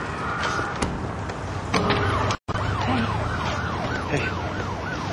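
Emergency vehicle siren in a fast rising-and-falling wail, about three sweeps a second, starting about two seconds in and broken once by a brief drop-out, over a steady background of street noise.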